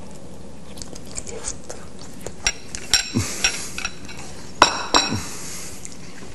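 Chopsticks clinking against a soup bowl: a scatter of sharp clinks, the loudest two about three and four and a half seconds in, each with a brief high ring.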